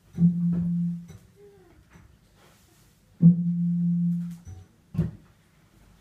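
Experimental improvised music: a low plucked-string note with a sharp attack, held about a second and then cut off, sounds twice, and a single sharp knock comes near the end.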